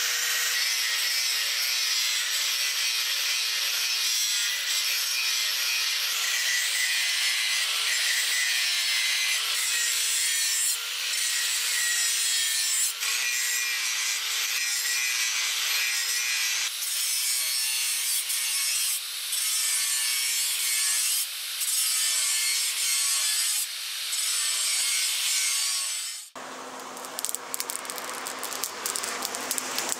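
Angle grinder with an abrasive disc grinding a steel blade, a harsh hiss of disc on metal over a steady motor whine, with a few brief dips. Near the end the sound changes abruptly to the quieter hiss of a coal forge fire.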